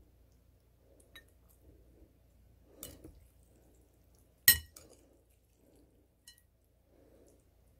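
Metal chopsticks and ceramic plates clinking as noodles are lifted from one dish to another: a few light taps and one sharp, loud clink about four and a half seconds in.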